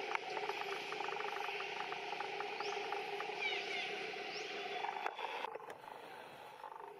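Outdoor forest ambience: a steady insect drone with fast even ticking, and a few short rising bird chirps. A sharp click comes about five seconds in, and the drone drops away soon after.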